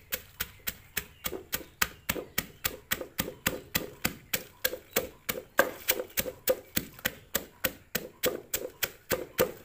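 Wooden pestle pounding dried chillies and garlic in a stone mortar, a steady run of knocks about four a second, crushing them into a paste.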